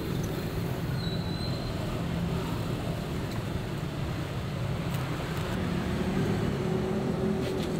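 Steady low rumble of street traffic with engines running.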